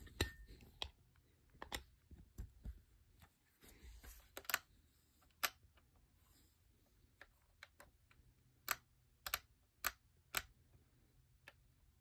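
Buttons on a Magnavox AJ3440 clock radio being pressed while its displayed time is set: a series of sharp plastic clicks, irregular at first and then about two a second, with some soft handling rustle.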